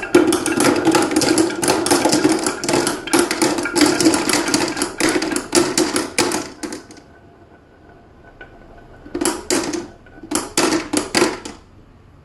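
Many marbles clattering down a marble run in a dense, rapid stream of clicks for about seven seconds, then two shorter bursts of clatter near the end.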